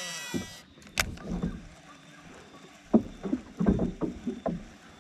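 Baitcasting reel's spool whirring as line pays out on a cast, its pitch falling as it slows and stops about half a second in. A sharp click follows about a second in, then a cluster of knocks and taps around three to four and a half seconds.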